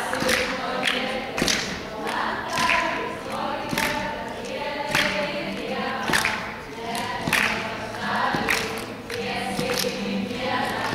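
A group of young people singing a song together in chorus, with a sharp beat about once a second.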